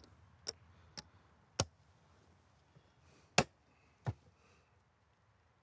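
Mancala game pieces dropped one at a time into the board's pits, making separate sharp clicks: three about half a second apart, then two more near the middle, the loudest about three and a half seconds in.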